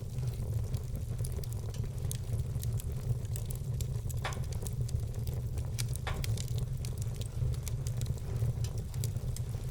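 Wood fire crackling, with many small sharp clicks and a few louder pops, over a steady low rumble.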